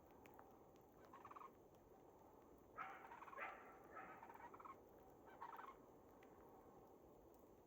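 Faint animal calls in the background: four short, rapidly rattling calls, the longest about three seconds in.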